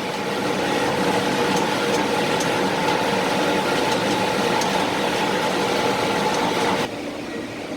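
Industrial reversing-drum tumble dryer running: a steady mechanical hum with a held whine from its motor and hot-air blower. The sound drops off suddenly near the end.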